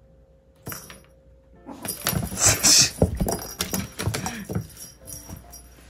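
A kitten pouncing on and wrestling with cat toys on a wooden floor: a single click, then about two seconds in a flurry of thumps, rustling and rattling that lasts about three seconds before dying away.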